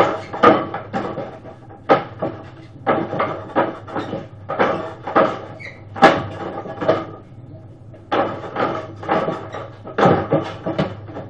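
Wing Chun wooden dummy (mook jong) knocked by forearms, hands and kicks: sharp wooden clacks of its arms and leg in quick, irregular runs with brief pauses.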